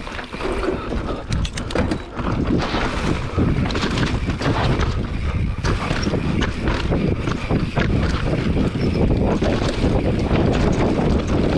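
Enduro motorcycle being ridden, its engine running under load beneath heavy wind noise on the microphone, with knocks and rattles from the bike over rough ground. The sound gets louder about two seconds in.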